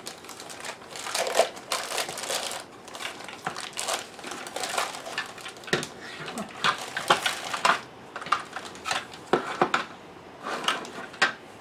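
Clear plastic bag crinkling and rustling in irregular bursts as it is pulled off a hard black plastic food processor part, with an occasional light knock.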